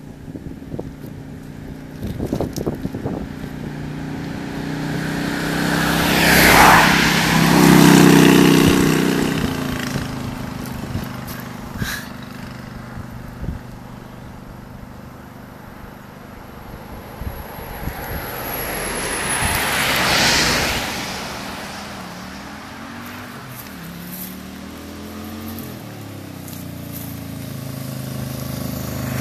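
Road traffic passing at speed: one vehicle goes by loudly about six to nine seconds in and another about twenty seconds in, each rising and fading away. Near the end a motorcycle engine draws closer and grows louder.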